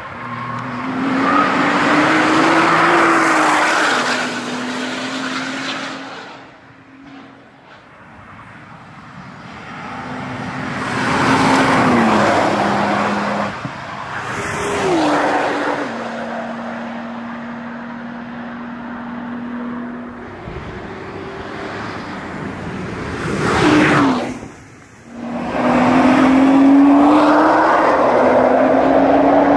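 Nissan GT-R NISMO's twin-turbo V6 at full throttle, passing at speed several times in a row. On each pass the engine note climbs in pitch and then steps down at upshifts before fading away.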